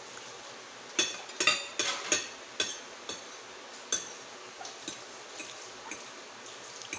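Eating utensils clinking against dishes: a quick run of sharp, ringing clinks about a second in, then scattered lighter clicks.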